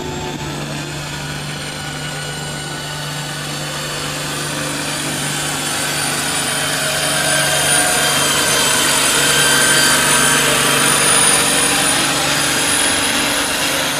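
Farm tractor engine running steadily, with a thin high whine above it. It grows louder through the middle and then holds.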